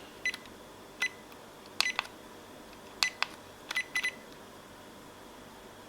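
Menu buttons on a Pixel X800N speedlite being pressed: about eight short clicks with a brief high tone each, some in quick pairs, as the menu settings are stepped through.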